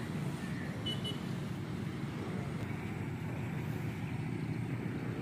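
Steady low rumble of distant road traffic, with a brief high chirp about a second in.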